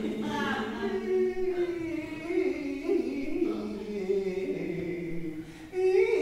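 Several voices singing together in overlapping, drawn-out notes that slide in pitch, like a small choir. The sound dips briefly near the end, then swells again.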